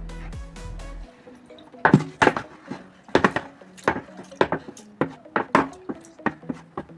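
Irregular knocks and clatters of a container and utensil being handled, one or two a second from about two seconds in, over faint background music.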